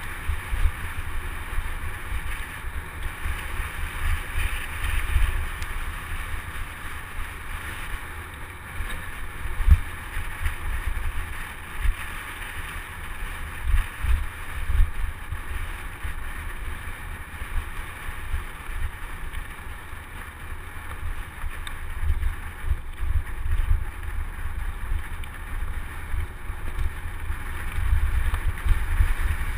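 Wind buffeting the microphone of a camera on a moving mountain bike, with a steady hiss of tyres rolling over a dirt trail and a few sharper jolts from bumps.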